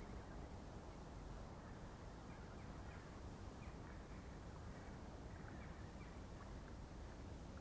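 Faint steady outdoor background noise with scattered short, high bird chirps.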